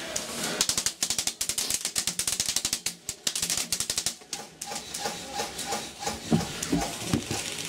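Airsoft BBs pattering rapidly and irregularly against the thin wooden walls of a sniper's hide, many clicking hits a second, under sustained incoming fire.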